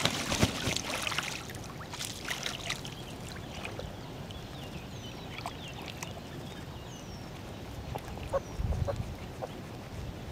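Splashing water as a Canada goose bathes, beating its wings on the river surface; loudest in the first second or so, then softer splashing of waterfowl dabbling. A few faint high, falling chirps come through later.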